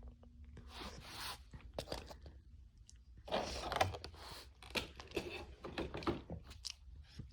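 Packaging being handled during an unboxing: two bursts of crinkling and tearing, about a second in and again a little past the middle, among scattered small clicks and knocks.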